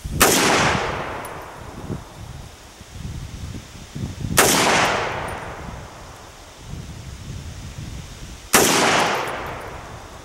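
Three single shots from a PSL-54c semi-automatic rifle in 7.62x54R, about four seconds apart. Each shot is followed by a rolling echo that fades over about a second and a half.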